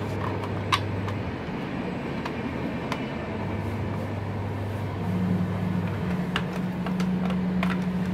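Plastic parts of a toy bubble gun's housing being handled and fitted together, with a few sharp clicks, over a steady low hum that steps up in pitch about five seconds in.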